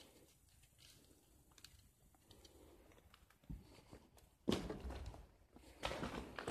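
Footsteps on a debris-strewn floor: faint ticks and a single thump, then louder crunching steps from about four and a half seconds in.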